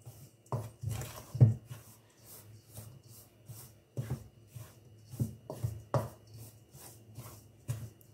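A wooden spoon stirring a dry flour, butter and shredded coconut mixture in a stainless steel bowl: irregular scraping with knocks of the spoon against the bowl, the loudest about a second and a half in.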